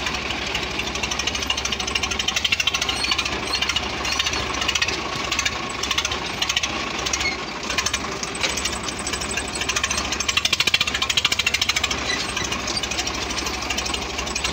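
Swaraj tractor's diesel engine running while the tractor drives, heard close from the driver's seat as a loud, rapid, even clatter of firing pulses.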